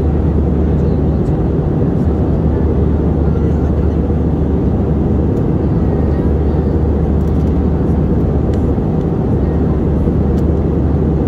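Steady low drone inside the cabin of an Airbus A319-111 airliner in flight: its CFM56 turbofan engines and the rush of air past the fuselage, heard from a window seat.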